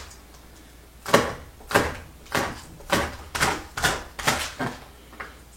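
Knife chopping green onions on a cutting board: about eight sharp chops at roughly two a second, starting about a second in and stopping near the end.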